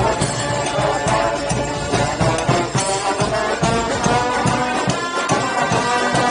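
Street marching band playing a tune: several wind instruments holding and moving between notes together over a steady drum and percussion beat.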